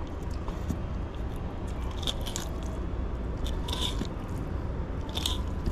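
Knife cutting and scraping along a barracuda's flesh and backbone while filleting it, with a few short scrapes about two seconds in, near four seconds and near the end.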